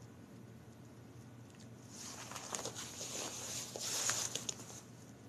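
Footsteps scuffing on a concrete sidewalk for a couple of seconds, with small clicks, over a low steady hum.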